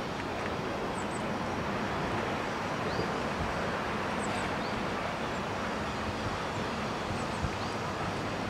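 LNER Class D49 4-4-0 steam locomotive 'Morayshire' running in slowly with a steady rushing noise and no exhaust beat, a light knock or two near the end. Small birds chirp briefly every second or so over it.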